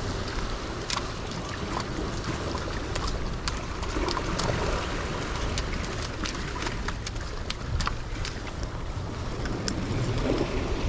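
Wind buffeting the microphone over the steady wash of sea waves, with scattered sharp clicks.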